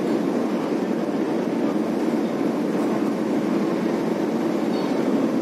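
Steady low rumble of a vehicle travelling across a steel truss suspension bridge, an even noise with no separate knocks or changes.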